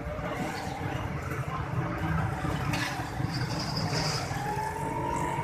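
Street traffic noise with a motor vehicle passing; its engine note rises and then falls about four seconds in. Under it, phulkiyan batter drops are frying in a large karahi of hot oil.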